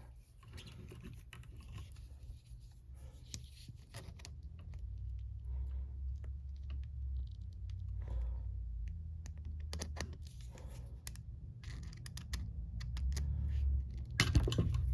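Small flat screwdriver prying at the plastic wire cap of an Ethernet keystone jack: scattered small plastic clicks and scraping, with a few sharper clicks over a low handling rumble.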